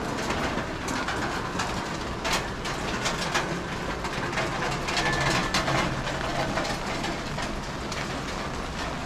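Rain on a wet street, with many close drops striking sharply, and a motor vehicle's engine running and passing in the street.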